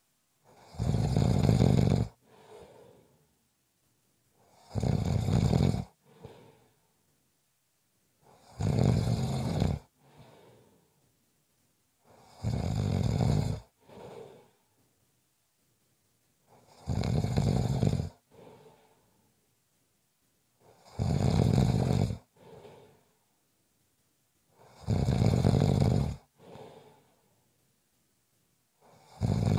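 A person snoring with a steady rhythm, one loud snore about every four seconds. Each snore is followed by a short, fainter breath.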